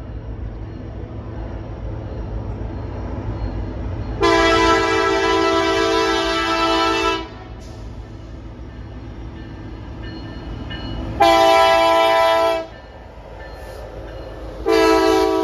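Norfolk Southern diesel freight locomotive sounding its multi-note air horn as it approaches: a long blast about four seconds in, a short one about eleven seconds in, and another long one starting near the end, over the low rumble of the locomotives' diesel engines building as the train draws closer.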